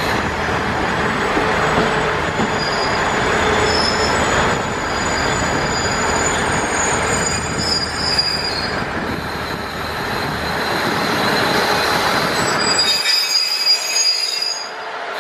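Slow-moving diesel railcar train passing along a station platform: steady running rumble of engines and wheels, with thin high-pitched wheel squeals coming and going. The low rumble drops away near the end.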